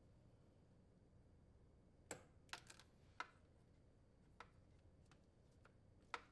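A handful of faint, scattered clicks and taps from hands handling the heater wires and a plastic zip tie, the first about two seconds in.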